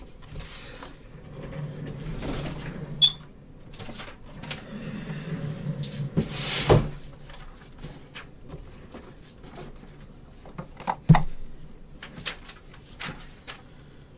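Trading card boxes, packs and plastic cases being handled on a tabletop: scattered clicks and knocks with soft handling noise between them. Three sharper knocks come about three, seven and eleven seconds in.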